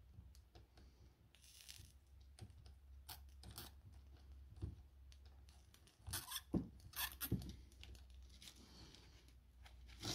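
Soldering a nickel connecting strip onto a lithium-ion cell in a cordless-tool battery pack: faint scattered clicks and taps of the soldering iron and solder wire on the metal strip. A couple of brief soft sizzles come about 1.5 seconds in and again near the end.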